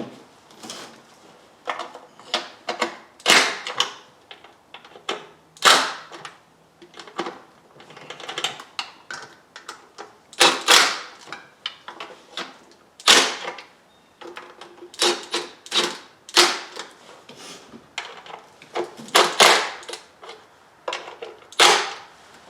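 Irregular metallic clicks and clatter of hand tools and bolts as the intake plenum bolts are threaded in and snugged up, some clicks coming in quick runs.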